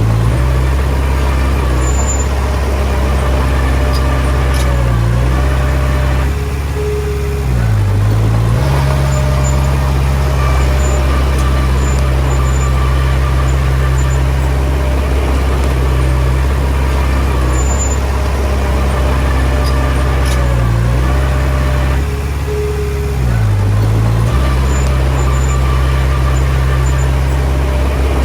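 Diesel engine of a Komatsu D20P bulldozer running loudly and steadily, its pitch dipping briefly and recovering about four times as it lugs under load.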